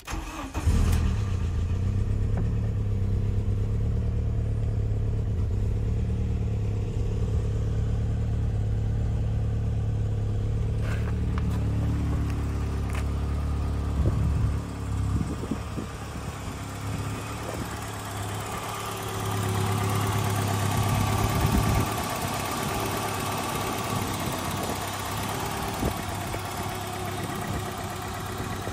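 1990 Volkswagen Jetta's 1.8-litre four-cylinder petrol engine cranking and catching within about a second, then idling steadily on a cold start after sitting for three months. About halfway through it is heard from outside the car at the open engine bay rather than from the driver's seat.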